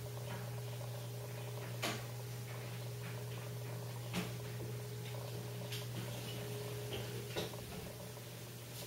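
Steady low hum with four faint, sharp clicks spaced a second or two apart.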